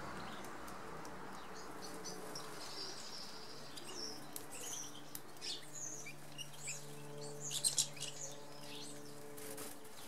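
Small garden songbirds giving short high chirps, scattered from about three seconds in, with a louder quick cluster near eight seconds. A faint steady low hum runs underneath.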